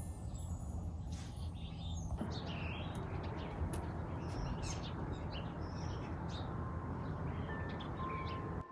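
Small birds chirping and tweeting in short, scattered calls over a steady background hiss.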